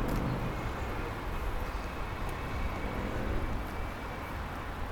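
Steady outdoor hum of distant road traffic, with some wind on the microphone.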